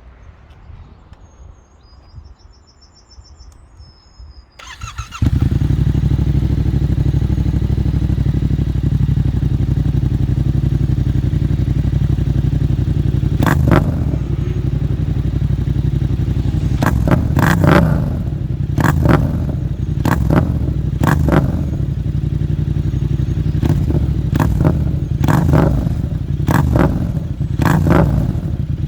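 Yamaha MT-07 689 cc parallel-twin motorcycle engine, through a Mivv GP Pro aftermarket exhaust, cranking and catching about five seconds in, then idling steadily. From about halfway it is revved in a series of about ten short throttle blips. Birds chirp faintly before the start.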